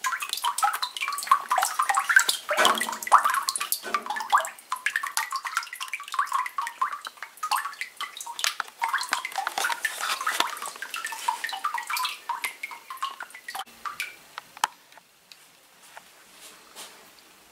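Water splashing and trickling onto a wet aluminium cylinder head, a dense run of irregular splashes and drips. About fifteen seconds in it thins to a few scattered drips.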